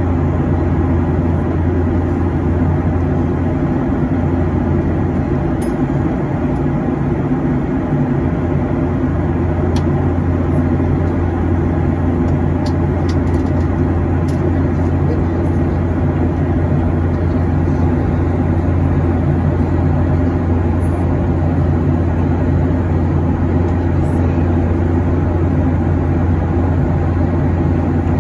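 Steady cabin noise inside a Boeing 737-800 in flight: a constant low hum from its CFM56-7B turbofan engines over the even rush of air along the fuselage.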